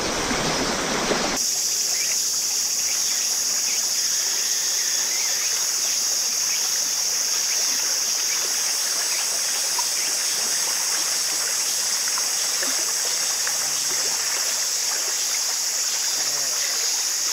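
Small waves washing and lapping among concrete wave-breaker blocks at the water's edge, under a steady high-pitched chorus of evening insects.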